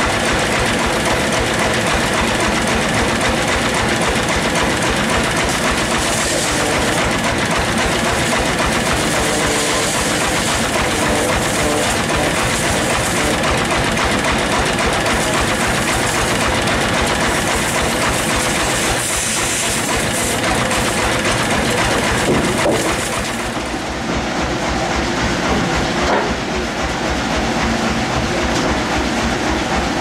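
Sawmill band saw running steadily with a fast low pulse, its blade cutting slabs from a jamblang (Java plum) log on the rolling carriage, with repeated stretches of hissing as the cuts go through. The noise dips a little about two-thirds of the way in.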